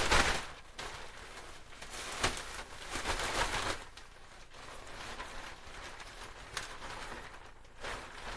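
Tent fabric rustling and swishing as it is handled and bunched up, loudest in a swish at the start, with a light knock about two seconds in.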